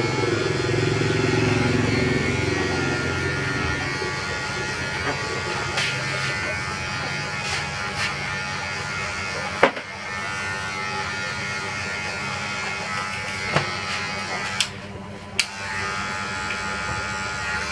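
Cordless electric hair clipper running with a steady buzz as it cuts short hair close to the scalp on the side of the head. A few sharp clicks come about halfway through and again later on.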